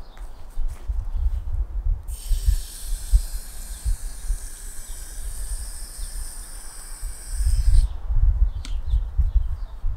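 Garden hose spray nozzle spraying water into the ground in a steady hiss, starting about two seconds in and cutting off near the end. Wind rumbles low on the microphone underneath.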